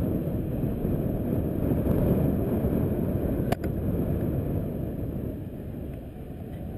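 Wind buffeting the microphone of a pole-mounted camera as the rider swings through the arc of a canyon swing: a low, rushing rumble that swells over the first two seconds and eases off after about five. One sharp click a little past the middle.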